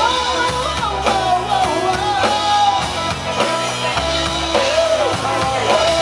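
Live rock band playing with drum kit and guitars, its melody line sliding up and down in pitch over a steady beat.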